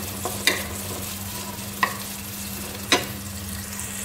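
Sliced onions sizzling in hot oil in a non-stick kadai while being stirred with a wooden spatula, which knocks against the pan three times, about a second apart.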